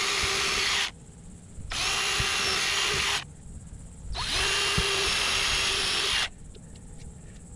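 DeWalt cordless drill boring holes into a white HDPE disc cut from a cutting board. It runs three times for one to two seconds each at a steady speed, with short pauses between.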